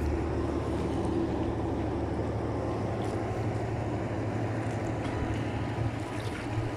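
A steady low rumble, even in level, with the sea washing against the rocks beneath it.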